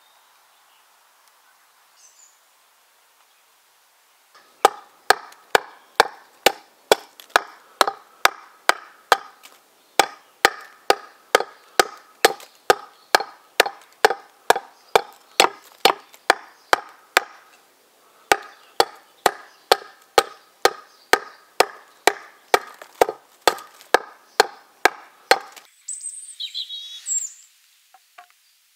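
Hand-forged T-shaped axe with a steel bit hewing a split ash plank: steady chops about two a second, the blade biting into the wood, with a short pause about two-thirds of the way through.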